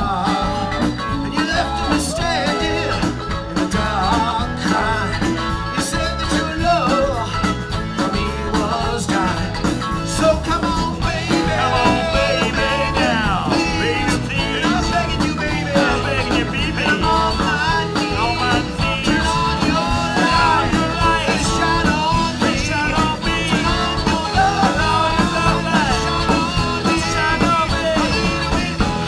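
Live rock band playing loudly, a man singing into a microphone over electric guitar, organ and drums.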